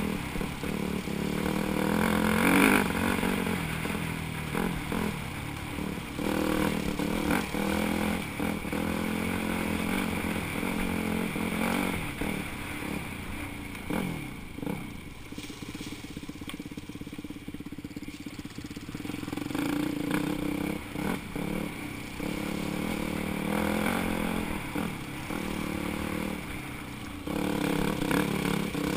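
Dirt bike engine heard on-board, revving and easing off over a rough trail, with short knocks and clatter. For several seconds in the middle the engine drops low with falling pitch, then picks up again near the end.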